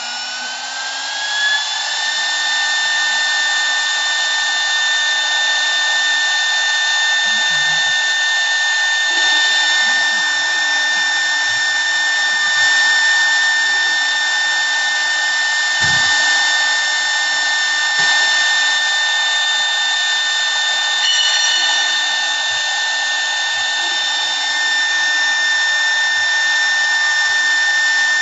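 CNC wood lathe running: a high whine rises in pitch for about two seconds as the machine comes up to speed, then holds steady over a continuous hiss from the wood being turned. A single brief knock about halfway through.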